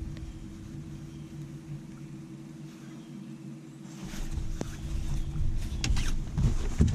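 Bow-mounted electric trolling motor on a bass boat humming steadily under low rumble, the hum stopping about six seconds in. A run of sharp knocks and thumps follows near the end.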